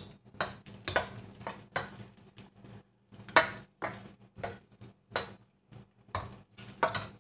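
Long-handled spatula scraping and knocking against a stainless steel wok while stirring garlic in hot oil: a string of irregular clicks and scrapes, a few a second, the sharpest about three and a half seconds in.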